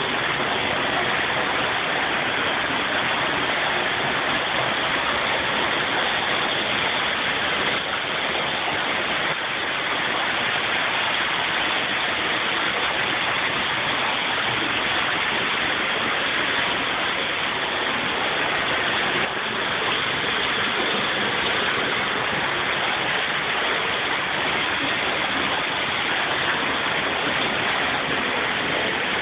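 Steady rush of running water from a creek.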